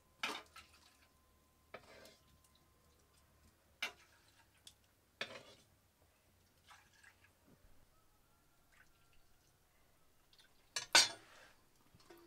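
A stainless-steel spoon clinking against a steel wok, bowl and plate while soup is scooped into a small bowl. The clinks are sharp and scattered, a second or two apart, with the loudest a double clink near the end.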